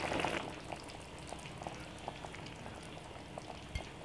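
Spiced broth bubbling around chicken pieces in a wok. About half a second in the loud bubbling falls away as the gas flame is turned off, leaving a faint simmer with scattered small pops and one short knock near the end.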